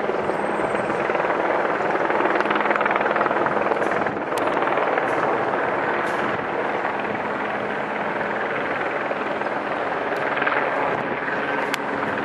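Helicopter flying overhead: a steady drone of rotor and engine, with a low steady hum underneath.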